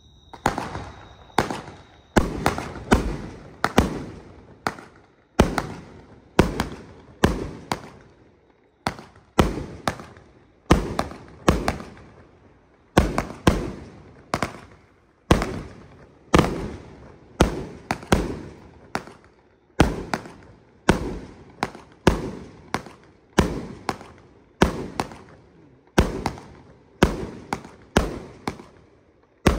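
A 144-shot firework cake with 30 mm tubes, firing in a steady run of sharp bangs, roughly one to two a second, each trailing off briefly.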